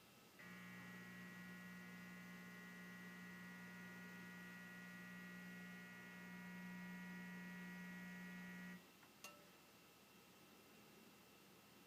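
Dimplex linear convector electric heater humming steadily: the odd noise it makes while heating. The hum starts about half a second in, cuts off abruptly after about eight seconds, and a single short click follows.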